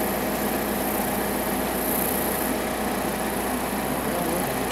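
Steady low hum of an engine running at idle, with no shot fired.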